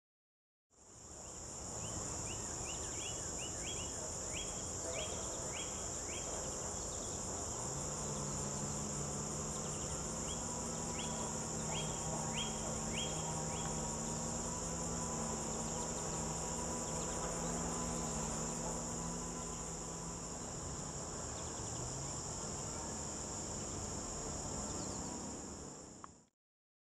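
A steady, high-pitched chorus of insects buzzing in summer vegetation. Twice, a bird calls with quick runs of short falling notes. A faint low hum comes in partway through and fades out later.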